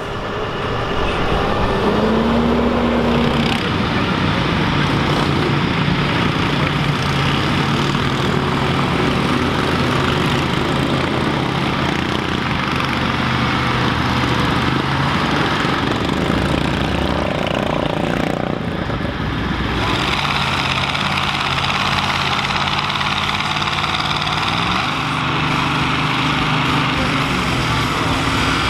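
Big diesel tractor engines working hard under load while pulling a weight-transfer sled, running steadily with slow shifts in pitch. The sound changes about 19 seconds in as a different tractor takes over.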